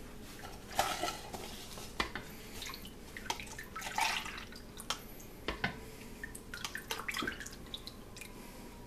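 A plastic measuring cup scooping a milk mixture from a stainless steel bowl and pouring it into a plastic cup. There are splashes and trickling, and light knocks as the cup touches the bowl, the loudest about a second in and again about four seconds in.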